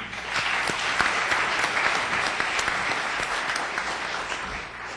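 Audience applauding. The clapping swells within the first half second, then slowly dies down.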